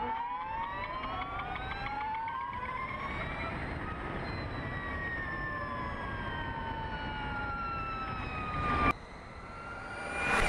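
Harley-Davidson LiveWire electric motorcycle whining as it rides. The whine climbs in pitch as the bike accelerates for the first few seconds, then falls slowly as it slows, over a low rush of wind and road noise. After a sudden cut near the end, the whine rises again and grows much louder as the bike comes up to the camera.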